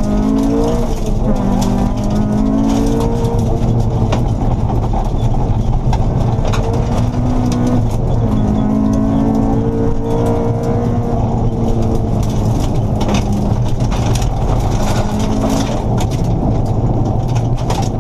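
Honda Civic rally car's engine running hard on a gravel road, heard inside the cabin, its pitch climbing and dropping back as it changes gear. Stones and gravel tick and clatter against the underbody over a steady road rumble.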